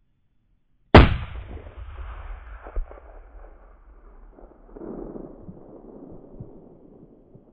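A single hunting-rifle shot about a second in, followed by a long rolling echo that fades away over several seconds, with a smaller sharp knock about two seconds after the shot. The shot hits the coyote.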